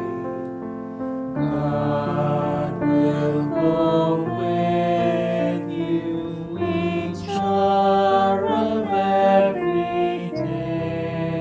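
Slow worship music at the close of a church service: held, choir-like chords that change every second or two.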